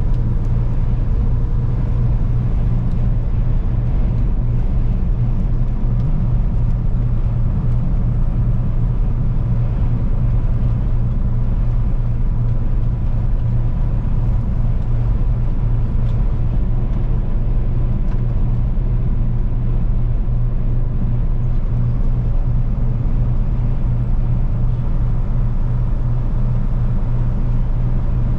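Semi truck's diesel engine and tyre noise heard from inside the cab while cruising on the highway: a steady low rumble with a faint steady whine above it.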